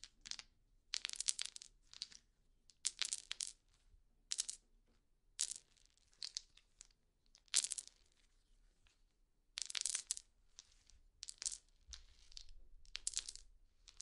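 About a dozen short, crinkly rustling bursts at irregular intervals, each lasting well under a second.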